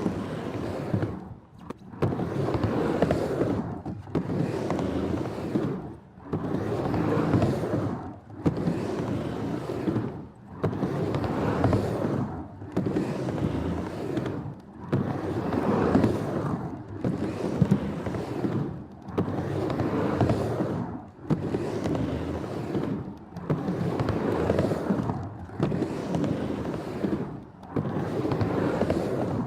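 Skateboard wheels rolling over pavement: a rumble that swells and fades about every two seconds, with occasional sharp clicks.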